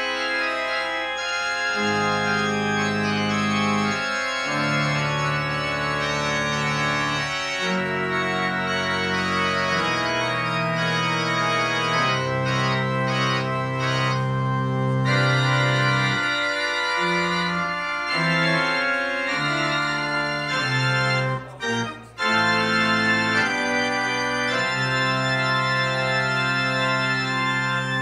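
Church organ played solo: sustained chords changing every second or two, with a brief break a little past two-thirds of the way through.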